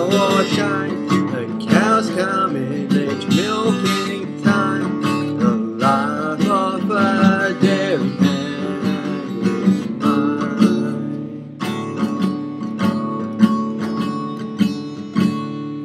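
Acoustic guitar strummed in a steady rhythm, with a man singing over it for the first part. The guitar carries on alone for the last few seconds.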